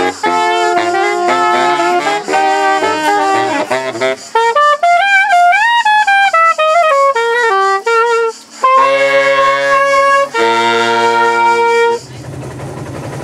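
Saxophone trio of soprano, alto and a larger saxophone playing in close harmony. Partway through, a single soprano saxophone line rises and falls over a few seconds, then the three hold sustained chords. The playing stops about twelve seconds in and gives way to a low steady hum.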